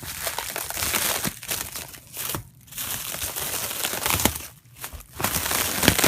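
Packaging crinkling and rustling as BMX wheels are worked out of a shipping box, in stretches broken by two short pauses.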